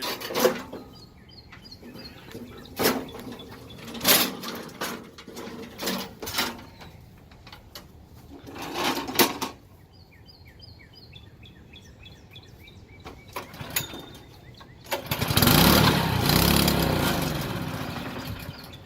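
Small single-cylinder engine on a core aerator being pull-started: several pulls of the recoil starter cord, then about fifteen seconds in it fires and runs for a few seconds before dying away. It is not choked, and fails to keep running. Birds chirp between the pulls.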